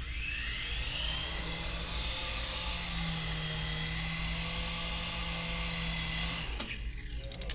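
Syma S107G toy RC helicopter hovering, its small electric motors and rotors making a steady high whine that shifts slightly in pitch. The whine stops about six and a half seconds in, followed by a few light clicks.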